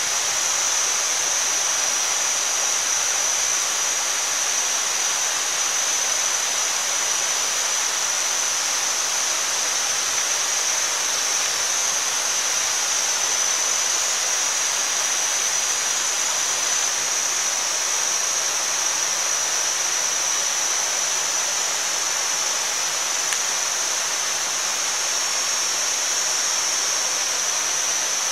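Pork and an egg sizzling steadily on a fire-heated stone, a dense even hiss of fat and egg white frying, with a steady high-pitched whine running through it.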